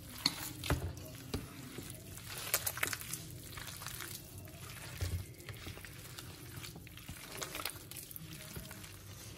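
Hand mixing and squeezing a wet gram-flour batter with shredded potatoes in a steel bowl: soft, irregular squelches and wet squishes.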